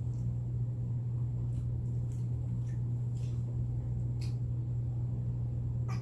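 A steady low hum, with a few faint, scattered short ticks.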